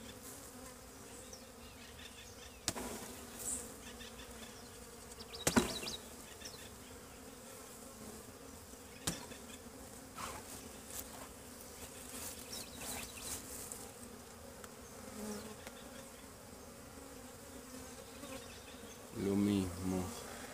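Honeybees buzzing steadily around a hive opened for inspection. A few sharp knocks cut through, the loudest about five and a half seconds in, and a louder close buzz passes near the end.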